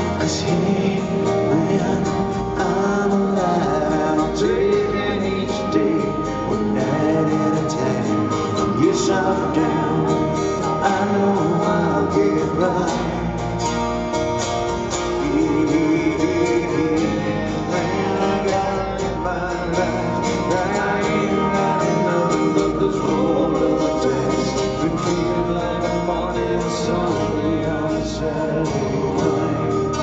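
Live acoustic rock song: two acoustic guitars strummed under male lead vocals.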